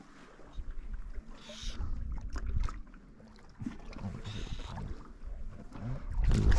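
Wind gusting on the microphone over small lake waves lapping and sloshing, louder near the end.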